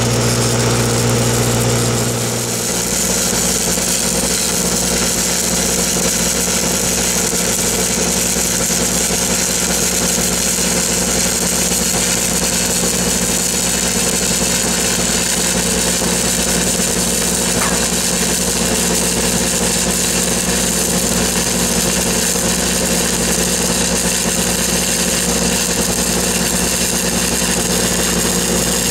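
Stick-welding (SMAW) arc crackling and hissing steadily as an electrode burns along a steel pipe joint, over the steady hum of an engine-driven welding machine. The engine's hum changes pitch about two and a half seconds in.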